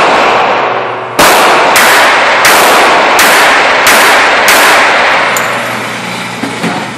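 Handgun fired six times in quick succession, about two-thirds of a second apart, each shot followed by a long echo off the walls of an indoor range that dies away after the last shot.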